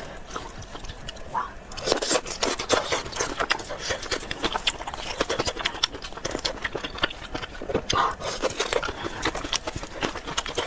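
Close-up mukbang eating sounds of a person chewing snails: a dense run of short clicks and smacks that gets busier about two seconds in.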